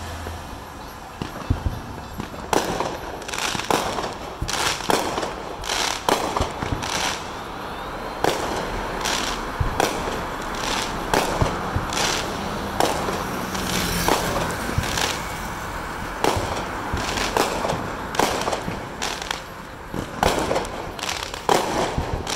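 Neighbourhood fireworks going off: a long, irregular string of sharp bangs and crackles, often one or two a second, from aerial bursts of sparks.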